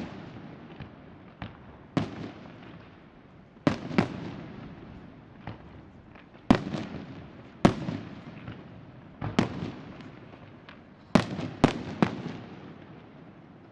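Aerial firework shells bursting: about a dozen sharp booms, spaced irregularly a second or two apart, each trailing off in a rolling echo, with a tight cluster of three near the end.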